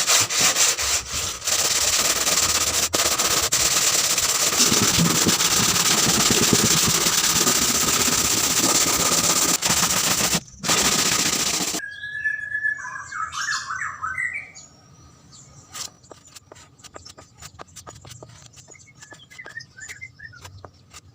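A power tool running at steady high speed, a grinding or cutting whine over loud hiss, which stops abruptly about twelve seconds in. After that it is much quieter, with a few bird chirps and scattered light clicks.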